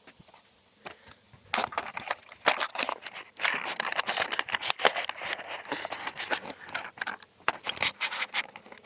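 Scissors snipping and rustling at toy packaging, with many small clicks and crinkles as the box and its plastic are cut and handled. It starts about a second and a half in.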